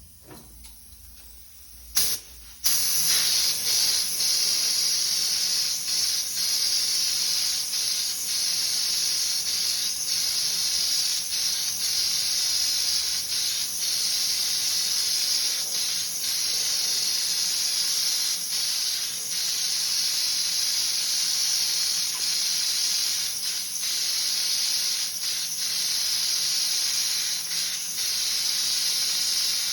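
Paint spray gun spraying single stage paint: a short blast about two seconds in, then a steady loud hiss of spraying with brief dips as the trigger is eased.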